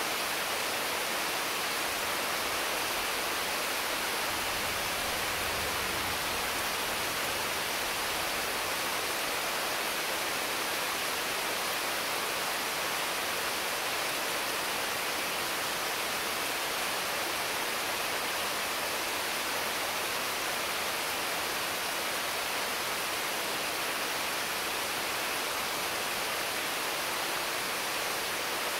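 Heavy rain falling steadily on mango and papaya trees: an even, unbroken hiss.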